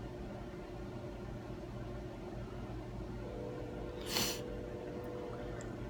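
Steady low room hum, with one short hissing rush of noise about four seconds in.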